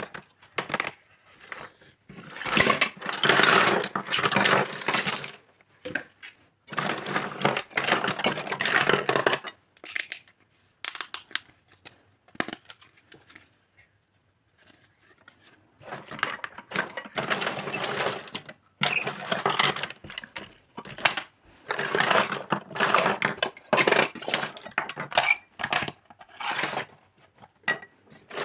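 Toy kitchen set and its packaging being handled during unboxing: stretches of rustling and clattering a few seconds long, with scattered clicks between them and a short lull about halfway through.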